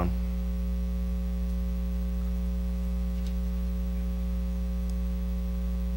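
Steady electrical mains hum in the sound system: an unchanging low buzz made of several steady tones, with a faint tick or two.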